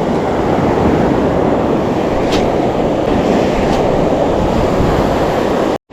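Ocean surf washing around and wind buffeting the microphone: a steady, dense rumble that breaks off for an instant near the end.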